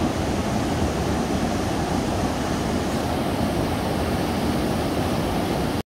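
Deschutes River whitewater pouring over a standing wave: a steady, even rushing roar that cuts off suddenly near the end.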